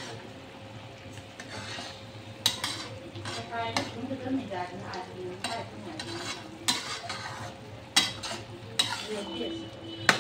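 A metal spatula stirring and scraping chopped chicken intestines around a wok, with the cooking liquid sizzling underneath and several sharp knocks of the spatula against the pan.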